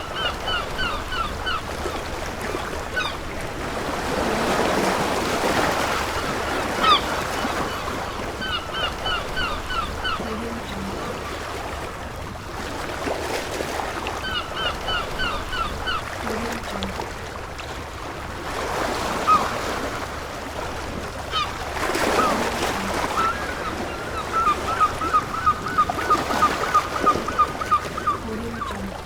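Seagulls calling in runs of short, evenly repeated cries, the longest run near the end, over waves breaking and washing on a beach in slow swells.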